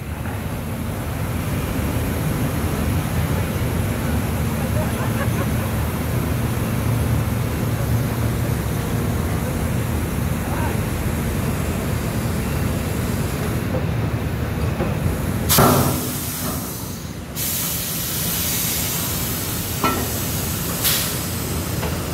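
Steady low rumble of drilling rig machinery while a joint of drill pipe is lowered down the V-door ramp during rig-down. About two-thirds through comes a loud knock, then a sudden burst of hissing that runs for several seconds, with two lighter knocks near the end.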